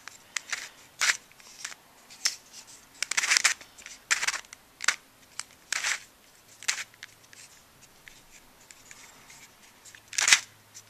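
Plastic layers of a QJ Skewb Megaminx, a dodecahedron-shaped 3x3 twisty puzzle, being turned by hand: a series of irregular scraping clicks, the loudest near the end. The turning is rough and stiff, the pieces scraping against each other, as on a new puzzle not yet broken in or lubricated.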